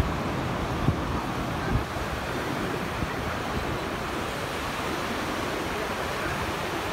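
Ocean surf washing steadily onto a sandy beach, waves breaking in the shallows. Two brief low thumps stand out in the first two seconds.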